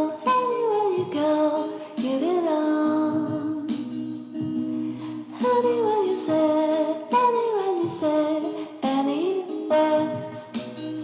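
Music: a song with a singing voice that slides down in pitch again and again over a steady accompaniment.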